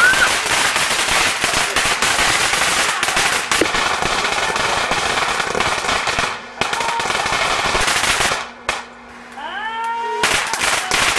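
Ground fountain fireworks spraying sparks, with a dense, steady crackling. A little past the middle the crackle drops off briefly, and a rising whistling tone sounds before the crackling returns near the end.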